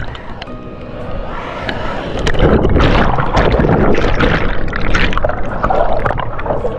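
Rushing, splashing water over a low rumble, growing louder about two and a half seconds in.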